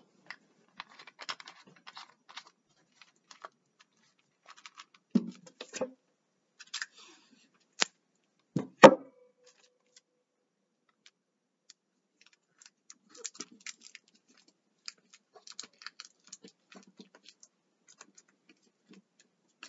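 Scattered faint rustles, crinkles and clicks of hands working with sticky tape and a plastic water bottle as the bottle's lid is taped shut, with a couple of louder knocks about five and nine seconds in.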